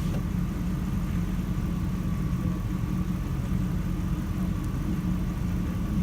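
Vehicle engine idling steadily, with a constant low hum.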